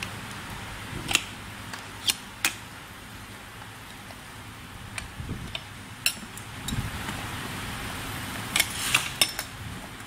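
Steel tyre levers clinking and clicking against the rim of a Gotway MTen3 hub motor as the tyre is prised off, in scattered sharp clicks: a few in the first seconds and a quick cluster near the end. A steady low hum runs underneath.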